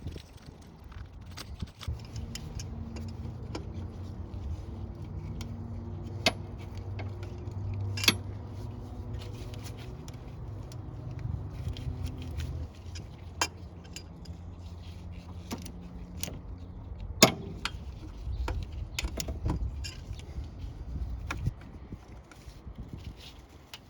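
Metal hand tools clicking and clinking against engine parts during disassembly, with a few sharper metallic knocks, over a low hum.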